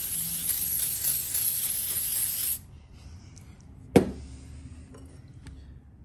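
Aerosol spray can hissing in one steady burst into an open mortise lock's mechanism, cutting off about two and a half seconds in. A single sharp knock follows about four seconds in, then a few faint clicks.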